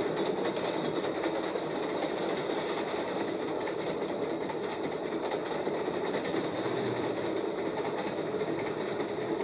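Railcar wheels clanking and rattling along the track in a steady, dense rattle with no pauses.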